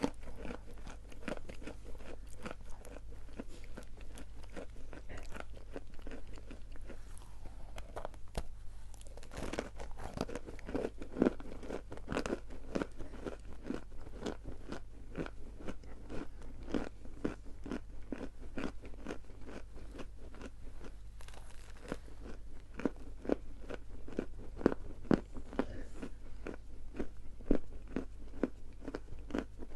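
A person biting and chewing pieces of natural edible chalk, the coconut ('Kokos') variety, making dense, crisp crunching several times a second, with a few louder bites near the middle and again near the end.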